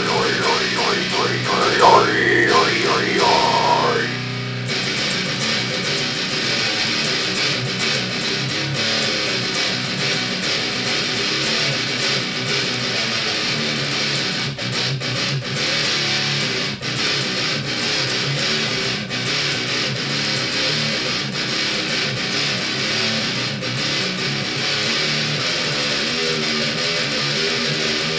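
Electric guitar playing metal riffs. For the first four seconds a voice at the microphone sings over it, sliding up and down in pitch, then the guitar goes on alone.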